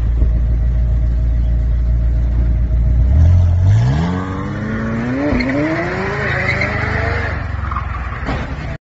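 McLaren supercar engine idling, then revving hard from about three seconds in as the car accelerates away. The pitch climbs steadily with a brief dip partway, while the tyres screech as the car loses grip and slides out of control.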